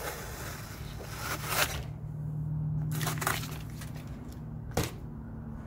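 Cardboard and masking-tape template being peeled off a fabricated aluminium part: tape tearing and cardboard crinkling, with a few louder scrapes, over a low steady hum.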